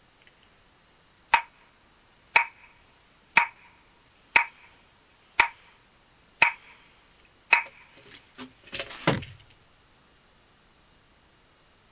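Seven sharp, ringing knocks or clicks, evenly about a second apart, then a short jumble of louder knocks and rustling near the end.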